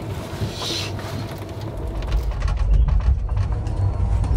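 Low rumble of an Amtrak Superliner sleeper car running along the track, heard from inside the car, with faint clicks and rattles. It grows louder about halfway through.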